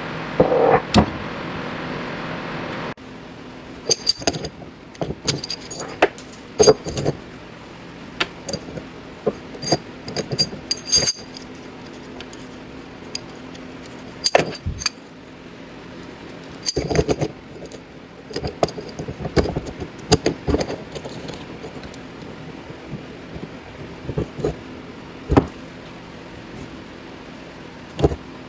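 Metal tools and parts clinking and clanking in scattered sharp strikes, some ringing briefly. The work is removing a wheel bearing race with a bearing splitter. A steady hiss and hum for the first three seconds cuts off abruptly.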